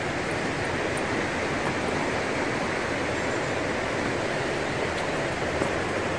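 Small mountain stream running over stones in a channel beside a path: a steady, even rush of water.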